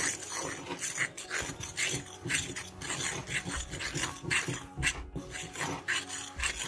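Metal fork scraping and stirring through flour as liquid is mixed into it in a bowl, in quick irregular strokes about two or three a second.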